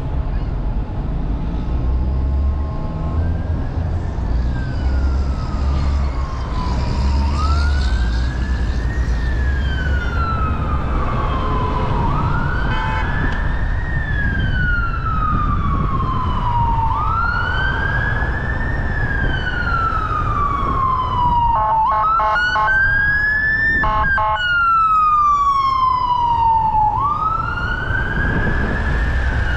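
Emergency vehicle siren wailing, its pitch rising and falling slowly and repeating about every five seconds, over the low rumble of street traffic. Around 22 to 24 seconds in, a short harsher burst of other tones cuts in.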